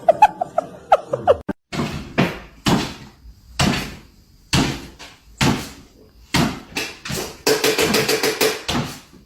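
A series of knocks or thumps, roughly one a second, with a quicker run of them near the end; a few short squeaky sliding tones come just before the first thumps.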